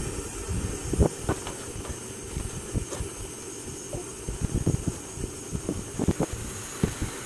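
Jetboil stove's gas burner running steadily under its cooking cup, with irregular low thumps and pops of the water coming up to a boil.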